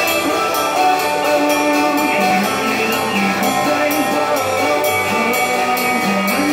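Drum kit played along to a recorded pop-rock song, with a steady beat of about two strokes a second over the backing track.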